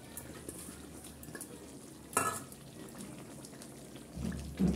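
Metal spatula stirring a thick fish curry in a steel karahi over a light sizzle, with a sharp clink of metal on the pan about two seconds in and another knock near the end.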